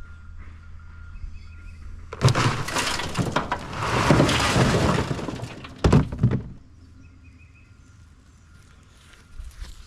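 Broken concrete chunks being dumped, crashing and clattering together for about four seconds, with a last sharp clatter near the end of the pour.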